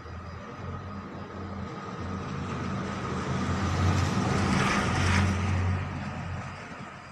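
A motor vehicle passing by: a low engine hum and tyre noise that swell to a peak about four to five seconds in, then fade.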